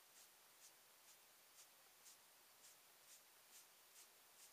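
Faint, light rubbing of a small cloth wiped over a pistol magazine, about two soft swishes a second: excess paint being wiped off the face so it stays in the engraved numbers.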